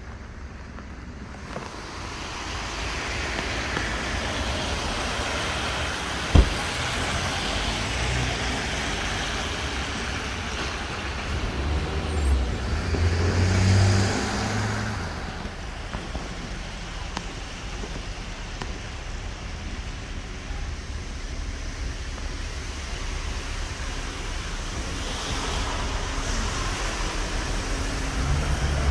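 Street traffic: cars driving past, with one vehicle's engine swelling louder as it passes close about halfway through and another coming up near the end. A single sharp knock about six seconds in.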